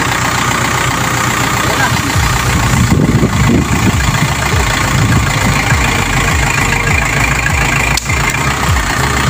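Farm tractor's engine running while the tractor sits stuck in deep mud, its low rumble growing heavier and pulsing from about two seconds in.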